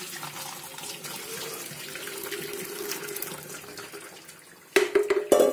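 Whey and curds of freshly split milk poured from a pan through a cotton cloth into a steel strainer: a steady splashing pour of liquid. Near the end come a few sharp, loud knocks.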